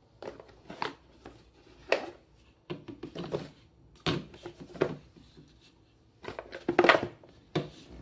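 Handling noise as a small plastic travel hair dryer and its cardboard box are picked up, turned over and set down on a wooden tabletop: irregular scrapes, rustles and light knocks about once a second.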